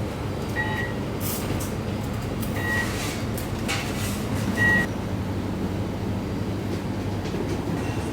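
Steady low vehicle rumble, with a short high beep sounding three times about two seconds apart.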